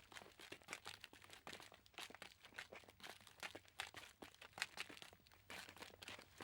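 Quiet footsteps on a crunchy, crackling surface: steady walking, each step a cluster of sharp crackles.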